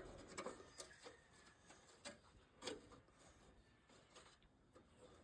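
Near silence, with a few faint clicks and rustles of hands handling wiring.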